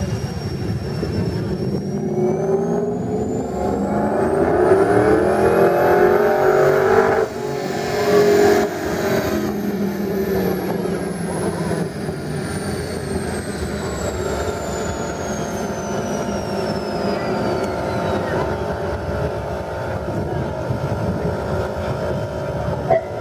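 Supercharged 5.4-litre V8 of a 2004 Ford SVT Lightning, tuned to 593 hp, making a full-throttle pull on a chassis dynamometer: the engine note climbs for about five seconds, cuts off sharply, then settles to a lower steady run. A thin high whine rises with the pull and falls away slowly afterward.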